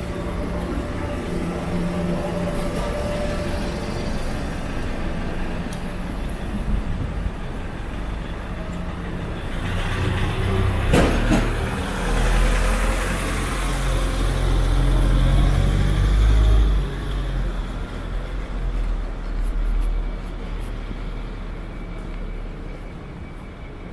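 Street ambience with a large vehicle passing close by: a low rumble and rushing noise builds from about ten seconds in, is loudest a little past the middle, then falls away.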